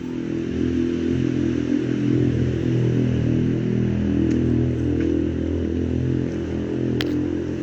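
A motor vehicle engine running steadily, with a single sharp click about seven seconds in.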